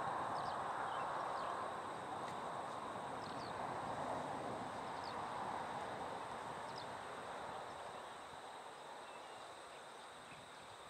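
Outdoor rural ambience: a steady rushing noise that slowly fades, with faint short bird chirps now and then.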